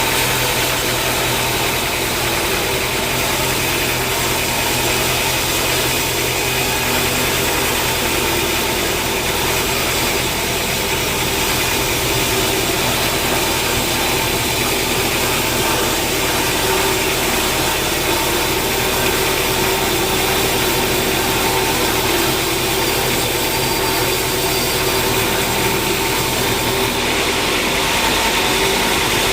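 Sawmill machinery running steadily: a constant motor or engine drone with several steady humming tones, and no cutting strokes standing out.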